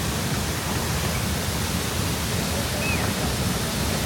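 Ouzoud waterfall's falling water, a steady, even rushing hiss.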